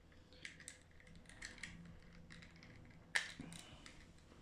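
Small plastic clicks and ticks as a uConnect headphone's plastic earcup housing is handled and prised apart, with one sharp snap about three seconds in.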